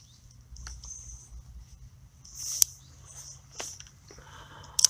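Handling noise from a light fishing rod and spinning reel: a few sharp clicks and soft rustles, the loudest click about halfway through and another just before the end.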